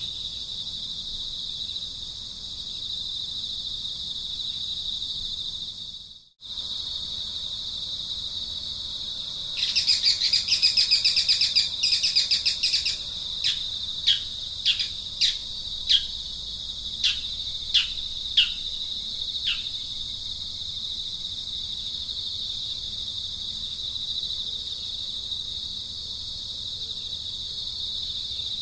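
Steady high-pitched insect drone, with a bird calling over it: a fast chattering run about a third of the way in, then a string of short, quick notes that fall in pitch. The sound cuts out for an instant about six seconds in.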